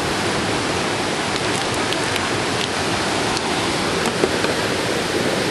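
Steady rush of fast-flowing water, an even roar with no breaks.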